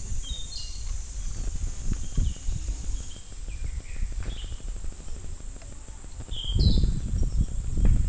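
Cicadas singing in a steady, high-pitched chorus, with short bird chirps over it. Low rumbles come and go, loudest about two-thirds through and at the end.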